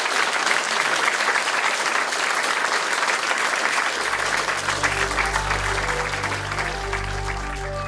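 Audience applauding at the end of a lecture. About four seconds in, music with low held notes comes in under the clapping.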